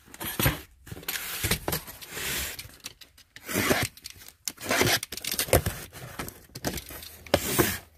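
Cardboard boxes being handled and opened: a utility knife slits packing tape, and the cardboard flaps scrape and rub, in irregular rasping bursts with short gaps.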